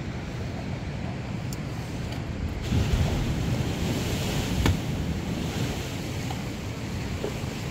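Wind buffeting the microphone over the sea surf, rising in a stronger gust about three seconds in. A single sharp click comes just before five seconds.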